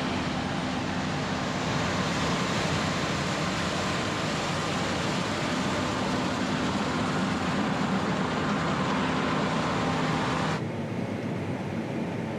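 Combine harvester running steadily under load, a low engine hum under a broad machinery hiss. About ten seconds in it cuts abruptly to a duller, quieter engine sound.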